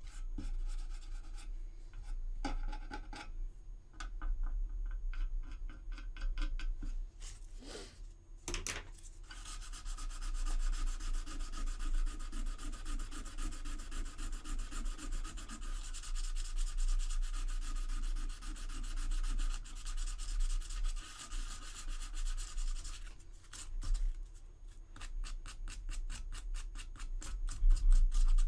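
Sandpaper rubbing back and forth over a resin model part, smoothing a glue-filled seam. It starts as faint, scattered scraping, turns into steady, fast rubbing from about ten seconds in, and breaks into separate strokes near the end.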